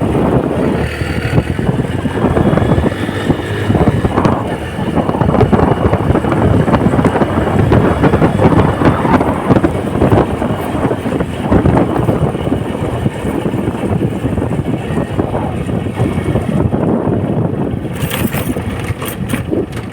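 Small Honda motorcycle engine running while riding, with wind buffeting the microphone. The sound stays loud and rough throughout.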